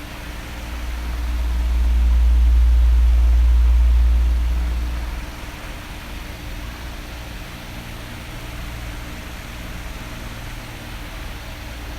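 Electric fan running steadily, an even airy hiss. A deep low rumble swells about a second in and fades away around five seconds in.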